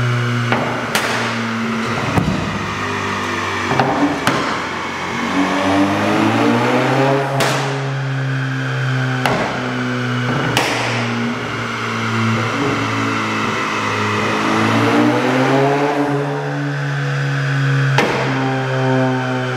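Stage 2+ remapped Volkswagen Fusca (Beetle) 2.0 TSI turbo engine revving on a chassis dyno, revs rising and falling twice, with about eight sharp exhaust pops and bangs from a map tuned to shoot flames from the exhaust. Background music plays under it.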